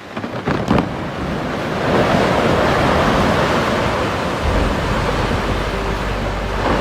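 Loud rushing noise that swells about two seconds in, after a few sharp cracks near the start.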